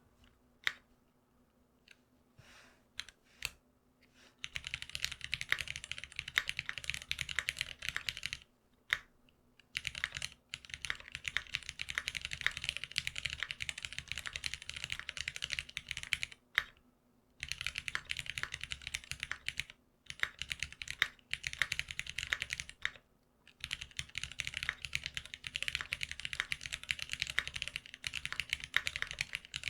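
Typing on a GeonWorks F1-8X custom mechanical keyboard with lubed Cherry MX Black linear switches. A few single key presses come first, then four fast runs of keystrokes separated by brief pauses.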